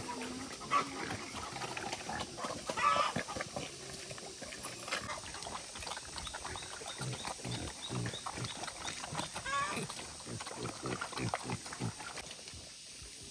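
Wild boar squealing three times, high bending calls about a second in, about three seconds in and near ten seconds, between many short grunting sounds.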